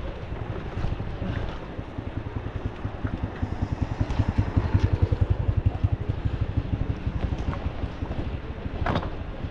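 Wind buffeting the microphone over the fast rattling rumble of a bicycle riding a rough, rocky trail. The rumble is loudest in the middle, and there is one sharp knock near the end.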